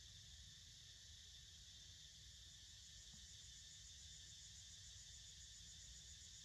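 Faint, steady chorus of insects, an even high-pitched buzz, over a low background rumble.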